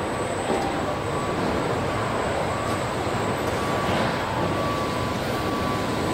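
Car assembly plant floor ambience: a steady wash of machinery noise with a faint tone coming and going.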